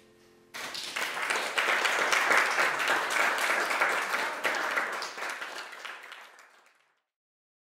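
Small audience applauding, starting abruptly about half a second in and dying away near the end.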